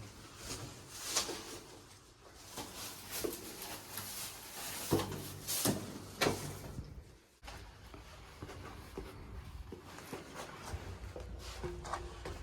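Irregular knocks, scuffs and rustling from people moving about inside a concrete storm drain, with a short echo. The sound dips briefly about seven seconds in, then the shuffling carries on.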